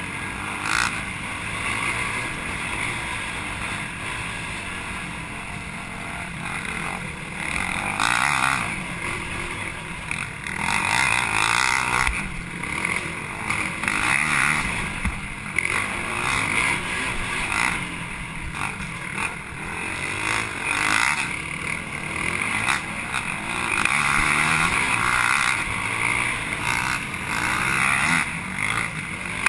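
Sport ATV engine racing under throttle, revving up and easing off every few seconds as the rider works through the trail.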